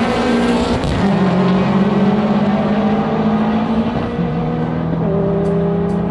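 Car engine running hard at high revs, holding steady pitches with a few sudden steps up and down.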